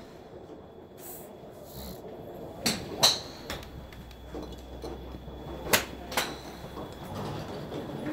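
Sharp clicks of golf clubs striking balls at a driving range: several separate impacts, the loudest about 3 s in and another near 6 s, some with a brief metallic ring, over a low steady background hum.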